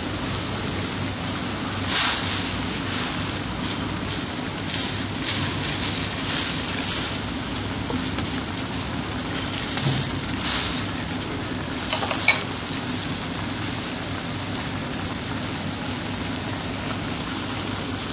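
Curry simmering in a stainless steel wok: a steady bubbling sizzle with a few sharper pops, and a short run of metallic clinks about twelve seconds in.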